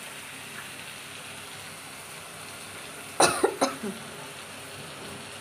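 Onion-tomato masala sizzling steadily in a kadai, with one sharp cough a little past three seconds in and two shorter coughs right after; the coughs are the loudest thing.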